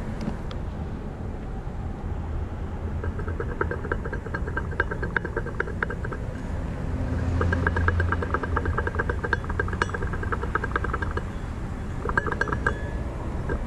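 Jetour X90 1.6-litre engine running, with a fast metallic rattle from between the engine and the dual-clutch transmission that comes in bursts over a steady hum and swells about halfway through. It is blamed on growing play in the dual clutch, which the mechanic suspects is at fault.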